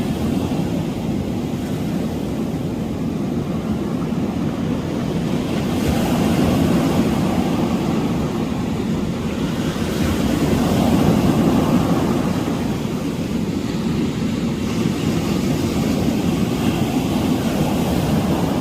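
Steady rushing of wind and ocean surf, swelling louder twice along the way.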